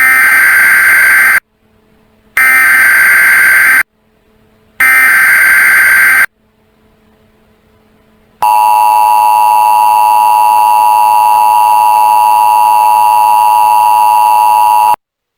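Electronic answering-machine tones: three loud, harsh beeps of about a second and a half each, a second apart, then after a short pause one long steady lower beep lasting about six seconds that cuts off suddenly.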